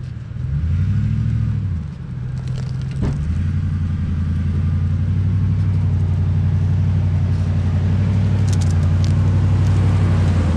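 Pickup truck engine pulling up a rough dirt track, revving up and down in the first couple of seconds, then holding a steady drone that slowly grows louder as the truck comes close. A single sharp click about three seconds in.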